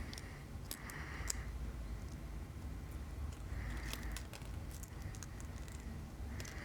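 Scattered small, light clicks and ticks of steel tweezers and watch parts as a Seagull ST3600 pocket-watch-size mainspring is worked into its barrel by hand, without a mainspring winder.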